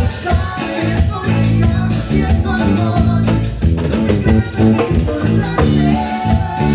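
Latin dance music with a steady beat, bass line and shaker, played loud.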